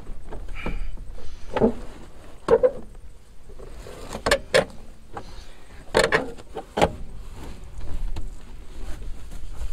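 Rear bench seat cushion of a Mercedes W116 being lifted and worked out of the car: a series of knocks and bumps with scraping as it comes free.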